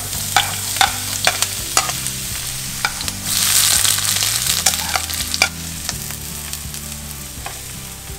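Chopped yellow onions scraped from a plate into two hot oiled woks, sizzling and frying, with the spatula clicking against the plate and wok. The sizzle swells loudest for about a second, three seconds in, as the second batch of onions hits the second wok, then settles into steady frying.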